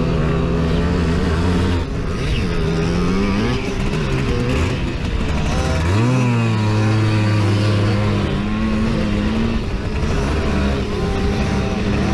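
Simson moped's 50 cc two-stroke single-cylinder engine running hard under race load from on board, its pitch rising and falling with the throttle; about six seconds in it climbs sharply and holds steady at a higher pitch.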